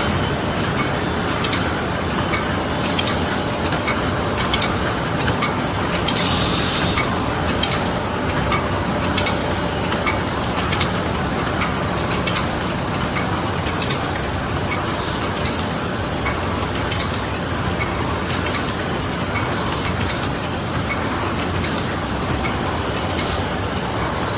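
Paper bag machine running steadily: a dense mechanical clatter with a light click repeating about every three quarters of a second. A brief hiss about six seconds in.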